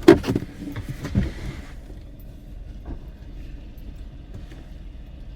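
Steady low rumble of a car running, with a few sharp knocks and a short vocal sound in the first half second.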